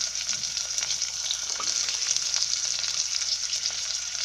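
Chopped onions sizzling and crackling in hot oil in an aluminium pressure cooker, a steady frying hiss with scattered pops. Garlic cloves and pieces of ginger are dropped in, adding a few light ticks.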